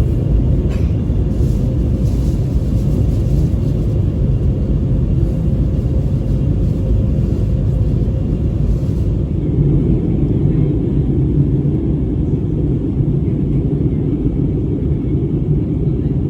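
Airbus A321-200 cabin noise during descent: a steady low rumble of the engines and airflow over the fuselage.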